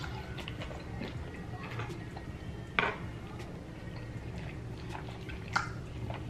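Eating at a table: small clicks and clinks of a plate and utensils, with two louder sharp clicks about three seconds in and near the end.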